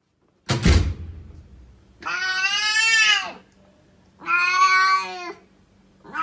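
A thump, then a Shiba Inu giving two drawn-out vocal calls, each about a second long, the first rising and then falling in pitch.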